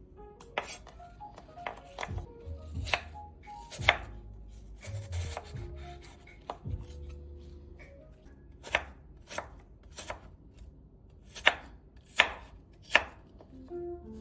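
Knife chopping apples on a cutting board: irregular sharp knocks, a few louder strokes bunched near the end, over soft background music.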